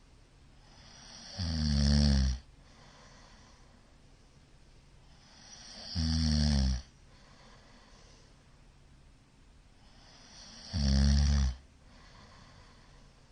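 A middle-aged man snoring loudly in his sleep: three low-pitched snores about a second long, roughly four to five seconds apart, each growing out of a quieter breath.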